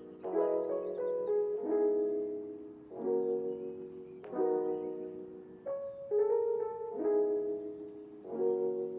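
Background music: slow piano chords, a new one struck about every second and a bit and left to ring and fade.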